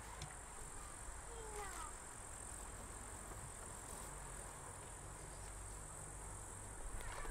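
Steady high-pitched chirring of insects in summer grass, over a low steady rumble.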